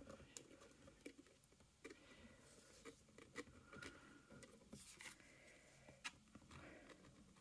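Near silence with a scatter of faint light taps and clicks as tarot cards are laid down and pressed onto a hard table.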